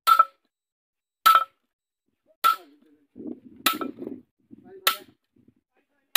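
Hammer blows on steel: six sharp strikes at an even pace, about one every 1.2 seconds, each with a short metallic ring.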